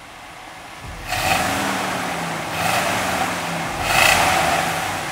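1996 Chevrolet K1500 Silverado Z71 pickup's engine running and being revved three times, the first blip about a second in, with a steady idle between.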